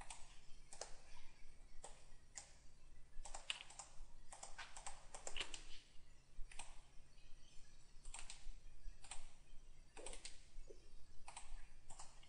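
Faint, irregular clicking of a computer mouse and keyboard, singly and in quick clusters of two or three.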